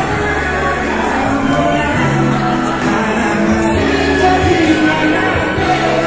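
Music with a singing voice, played loud with long held notes.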